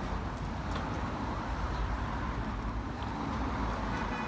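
Wind rumbling on the microphone of a riding cyclist, with faint road traffic behind it.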